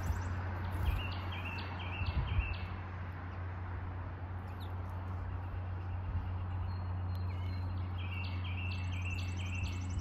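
A songbird calls a short run of about five quick notes, each one stepping up in pitch. It calls twice, about a second in and again near the end, over a steady low hum.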